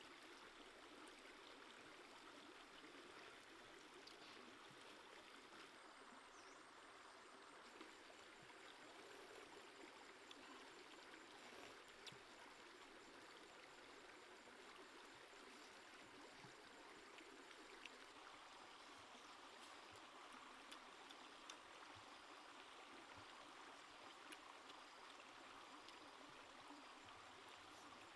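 Faint, steady running water of a stream, with a few small clicks scattered through.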